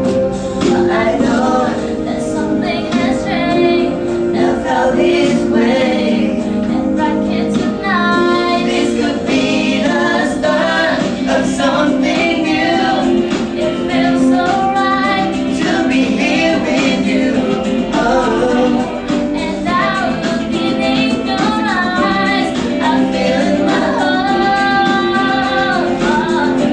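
A song with a female lead voice singing over steady instrumental backing.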